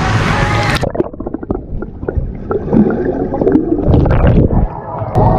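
Underwater sound in a swimming pool: about a second in, the poolside noise gives way to muffled bubbling and gurgling with soft knocks as the microphone goes under the water with a swimmer.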